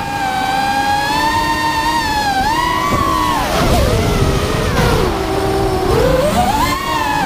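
The four brushless motors of a 5-inch FPV quadcopter (Rotorgeeks 2204 2300kv on triblade props) whining, heard from the onboard camera. The whine holds steady at a high pitch, drops about three seconds in as the throttle comes off, stays low for about two seconds, then climbs back near the end. Wind rushes over the camera microphone throughout.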